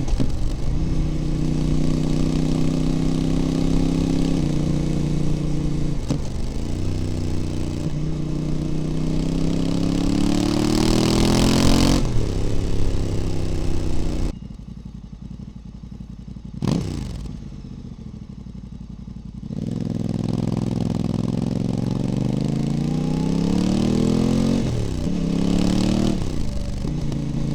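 Voge DS 800 Rally's parallel-twin engine through a Scorpion exhaust with the baffles removed, pulling hard through the gears: the revs climb, drop at each upshift and climb again. Around the middle it goes much quieter for several seconds, then pulls up through the gears once more.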